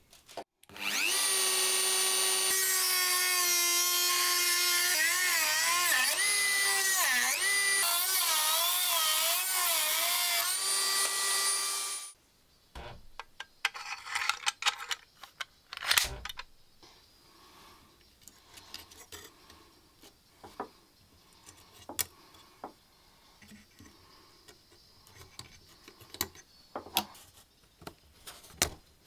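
A small high-speed rotary tool runs for about eleven seconds, its pitch dipping and recovering several times as it is pressed into the work, shaping the bit of a key blank. After it stops, the new key is worked in an old iron box lock, with scattered sharp metal clicks and scrapes.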